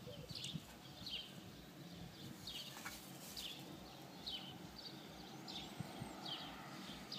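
A small bird chirping again and again in the background: short, high, falling chirps about twice a second, faint.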